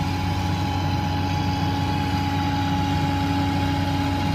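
Diesel engine of a JCB tracked excavator running steadily, with a constant hum and a steady whine above it.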